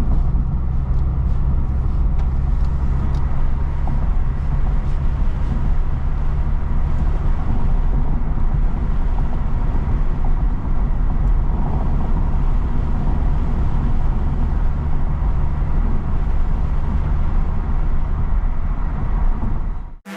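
ECU-tuned Lexus IS250's 2.5-litre V6 running at a steady cruise, with engine drone and road noise heard from inside the cabin with the windows up. It cuts off suddenly near the end.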